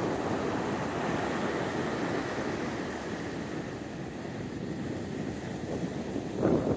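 Ocean surf breaking and washing up a sandy beach, mixed with wind rushing over the microphone, with a short louder gust near the end.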